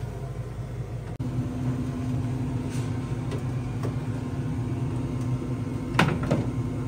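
A steady low mechanical hum, jumping in level about a second in. Near the end come two sharp clicks as a screwdriver works on a metal return-air grille.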